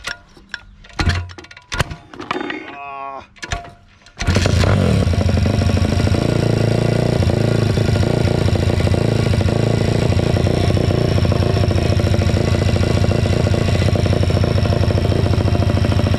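MRF 140 RC-Z pit bike's single-cylinder four-stroke engine being kick-started on choke from cold: a few knocks of the kickstarter, then it catches about four seconds in and runs steadily.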